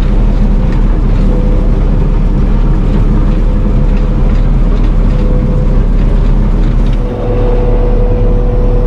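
Combine harvester running steadily while cutting heavy, green wheat, with a constant whine over the engine; a brief dip about seven seconds in, after which the whine is stronger.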